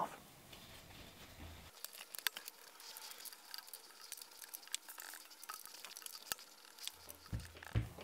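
Faint, scattered small clicks and taps of hand-tool work: an Allen key turning the bolts of a Magura brake booster on a hydraulic rim brake.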